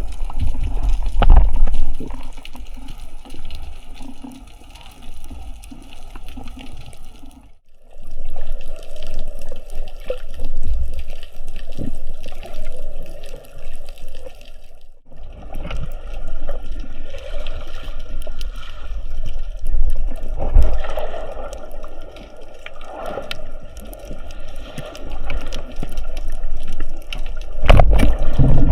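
Water sloshing and bubbling around a camera held in the sea, uneven in loudness, cutting out briefly twice.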